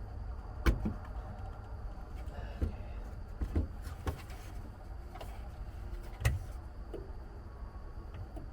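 Hand work on a Humvee's speedometer cable fitting: scattered sharp knocks and clicks from tools and parts being handled, two loud ones about a second in and near six seconds in, over a steady low rumble.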